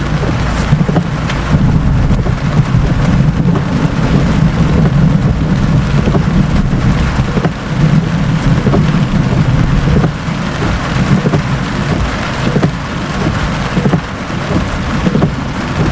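Heavy rain pouring down with long, strong rolling thunder throughout, from a cloud-to-ground lightning strike about 3 km away, strong enough to shake the ground.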